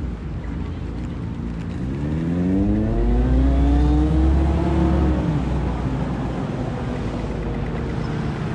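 A road vehicle's engine accelerating, its pitch rising for a few seconds with a heavy low rumble, then dropping away, over steady street traffic noise.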